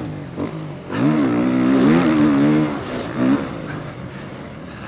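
Beta motocross bike engine heard from on board, the throttle opened and closed over rough ground. The revs drop at first, pull hard and waver from about a second in to nearly three seconds, blip once more, then fall back lower near the end, with wind rushing over the microphone.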